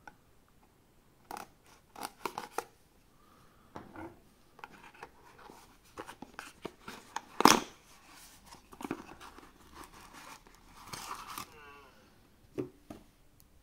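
Small cardboard product box being opened and its packing handled: scattered clicks, scrapes and snips, with one sharp snap about halfway through. Near the end there is a brief warbling squeak.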